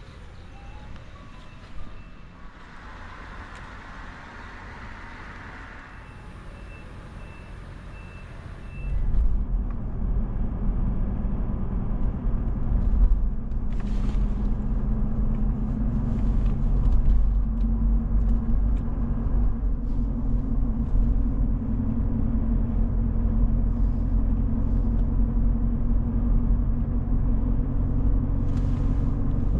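Engine running with a loud, steady low rumble that comes in suddenly about nine seconds in, after a quieter stretch with faint high steady tones.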